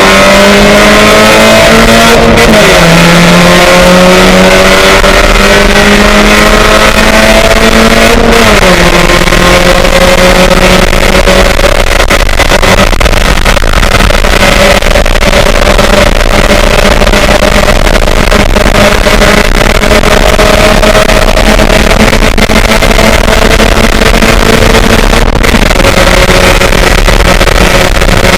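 Race car engine at full throttle, very loud, its note climbing then dropping sharply at two upshifts about 2.5 and 8.5 seconds in. It then pulls slowly higher and holds steady high revs down a long stretch.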